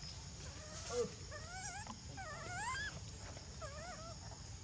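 Baby macaque crying in distress: a string of wavering squeals that rise and fall in pitch, the loudest about a second in.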